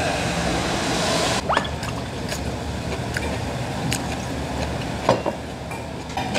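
Steady low hum of room noise with a few light clicks and clinks from the table, including a small glass bottle tipped over a soup bowl about four seconds in; a brief hiss in the first second or so.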